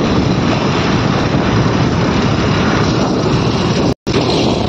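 Steady road noise heard from a moving scooter in traffic: engine and wind buffeting the microphone. The sound drops out for a split second near the end.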